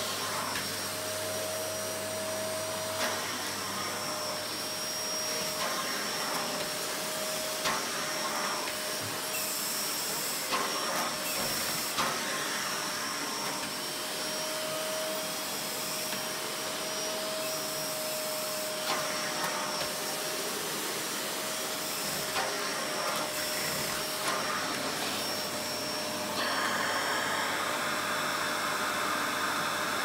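Vacuum cleaner running steadily with a high motor whine as its floor head is pushed about over a floor and rug, with a few soft knocks along the way. The sound brightens and gets a little louder a few seconds before the end.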